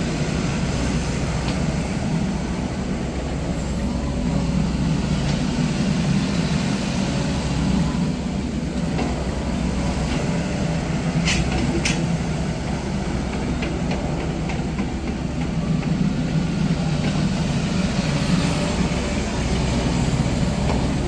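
Kubota diesel engine of a JH65 excavator running steadily, a low, even drone with slight swells in level. Two short sharp clicks sound about halfway through.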